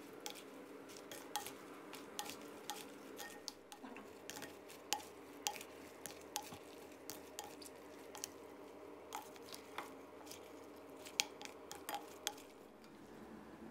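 A spoon clinking and scraping against a glass bowl as a salad of crispy fried-egg pieces and vegetables is tossed in its dressing: irregular light clicks and taps, a few sharper than the rest, stopping about a second before the end.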